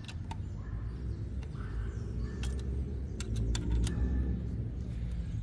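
Low engine rumble of a motor vehicle, swelling a little towards the middle, with a few light metallic clicks of an Allen key and spanner tightening a bracket screw.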